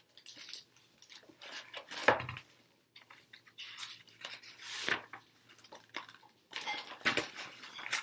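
A large hardcover picture book being handled and its page turned, with paper rustling and metal bangles on the wrist clinking, in irregular bursts. The loudest is a knock about two seconds in.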